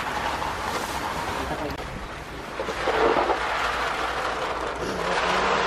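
Dried chickpeas rattling and rustling as they are scooped by hand from a woven sack into a plastic bucket, over a steady low hum.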